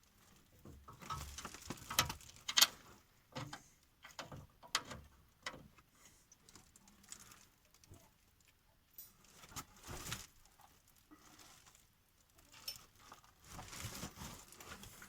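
Irregular small metallic clicks and taps as a 10 mm bolt is handled and fitted into the engine skid plate.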